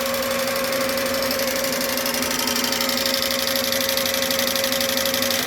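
RCA TP-66 16mm film projector running with no film loaded: a steady motor hum under a fast, even mechanical clatter, cutting off abruptly at the very end.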